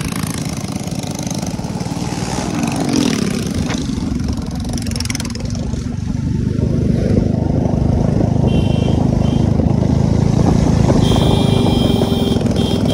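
Motorcycle engine running while riding, heard from the rider's own bike with wind and road noise on the microphone; it grows louder about six seconds in. Short high-pitched beeps sound twice in the second half.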